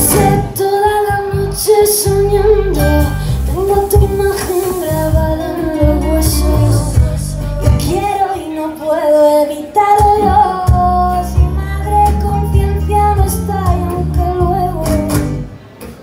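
A woman singing a slow melody over two strummed acoustic guitars, recorded live from the audience. The music dips briefly near the end.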